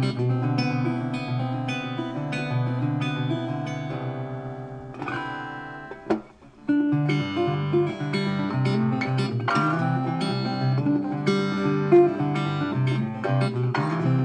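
Guitar music: plucked acoustic guitar notes, dipping briefly about six seconds in before picking up again.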